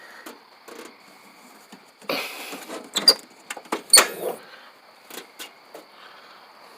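Toolbox being handled: a short scraping rustle about two seconds in, then two sharp clicks about a second apart, with scattered light ticks and knocks around them.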